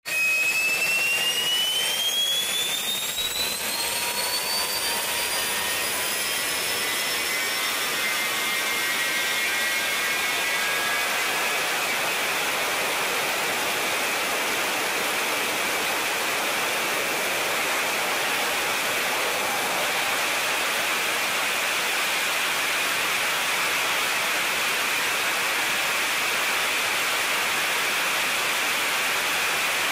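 Military jet engine running on a test stand in an enclosed test cell: a whine rising in pitch over the first few seconds as it spools up, then a steady loud roar with a strong hiss.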